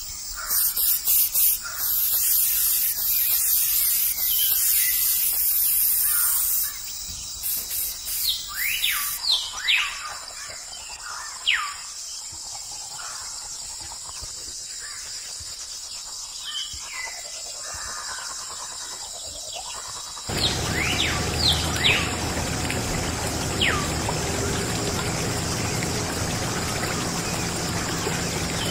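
Birds chirping throughout in short falling calls. A brush scrubs soapy plastic with a loud hiss for the first several seconds, and about two-thirds of the way through a small DIY water pump starts spraying a steady stream of water onto a toy tractor.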